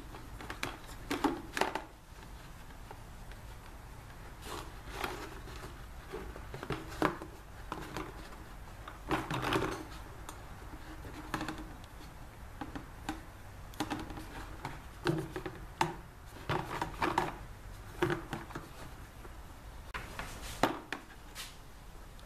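Copper tubing knocking, tapping and scraping against a plastic bucket as a coil is worked into it and out through a hole near the bottom. The taps are scattered and irregular, over a steady low hum.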